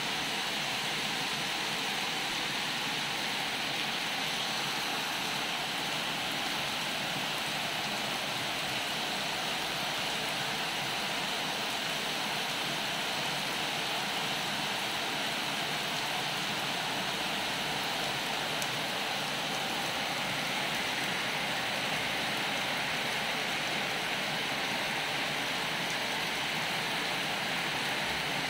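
Steady rain falling, a constant even hiss with no let-up.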